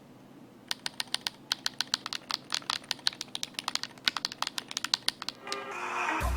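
Typing on a Dareu A68 Hall Effect keyboard: a quick, uneven run of key clicks lasting about four and a half seconds, then music coming in near the end.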